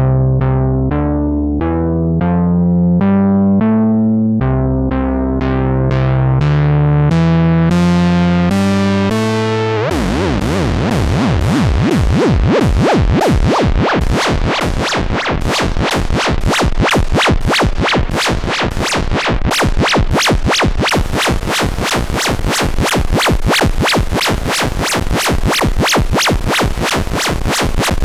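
Moog Subsequent 25 analog synthesizer playing a sequenced 'Scifi Skritch' patch. It starts with a steady run of about two short notes a second, each bright at the attack and quickly darkening. About ten seconds in it switches abruptly to a dense, rapid, gritty pulsing that fills the whole range.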